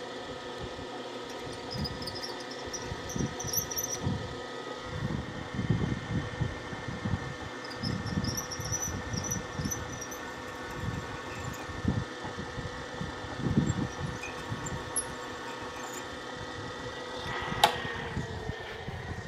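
Milling machine drilling out a stripped intake-manifold bolt hole in an aluminium two-stroke motorcycle cylinder to heli-coil tap-drill size. Over a steady hum come irregular low rumbles and two brief high squeals as the bit cuts, and a single sharp click comes near the end.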